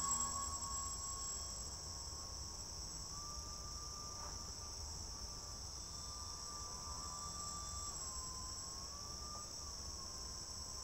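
Steady high-pitched insect chorus, with a faint whine that shifts slightly up and down in pitch.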